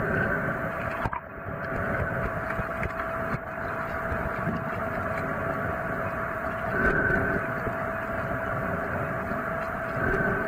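Muffled underwater noise picked up by a submerged camera: a steady rumble and hiss with a constant hum, with no change through the stretch.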